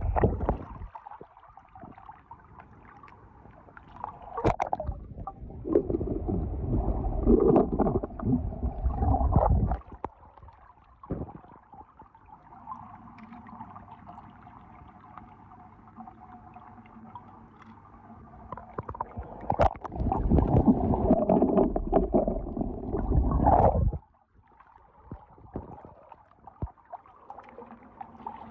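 Water sloshing and splashing as small die-cast toy cars are dunked and rinsed by hand. It comes in two long loud stretches with quieter water noise between, and the second stretch cuts off suddenly.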